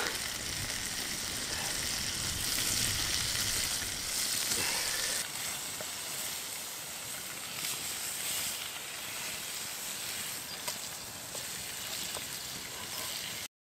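Fish fillets frying in butter in a pan over an open fire: a steady, high sizzling hiss.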